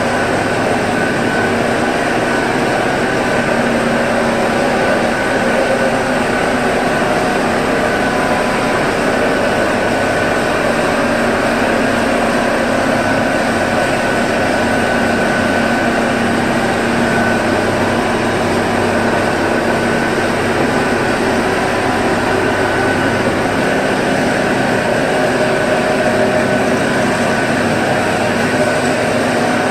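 Bamboo sawdust grinding machine running steadily, a loud even industrial noise with a few faint steady hums and no breaks.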